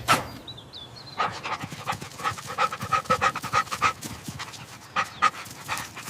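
Dog panting quickly and evenly, about four breaths a second.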